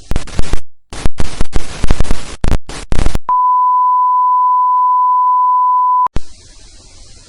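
Loud bursts of harsh electronic static cutting in and out for about three seconds, then a steady single-pitch beep like a test tone, held for about three seconds and cut off abruptly, leaving faint tape hiss.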